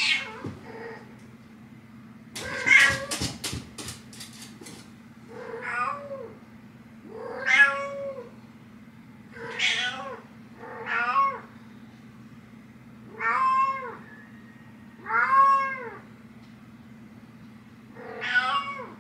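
A house cat meowing over and over at a closed bedroom door to wake its owner: about eight meows, each rising then falling in pitch, a second or two apart. A quick run of sharp clicks about two to five seconds in.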